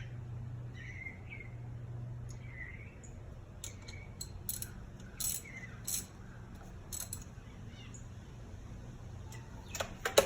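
Scattered metallic clinks of hand tools and sockets during spark plug work, with a sharper clink near the end. Birds chirp faintly in the background over a steady low hum.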